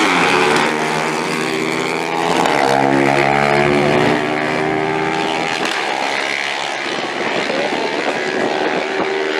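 Two small motorcycles accelerating hard down a drag strip at full throttle, engines revving up and dropping at each gear change about two and four seconds in, then going on as a rougher, more distant engine sound.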